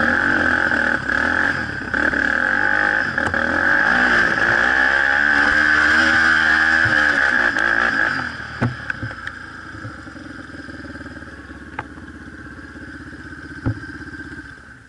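ATV engine revving hard under load for about eight seconds, its pitch wavering up and down, then dropping to quieter, lower running with a few sharp knocks.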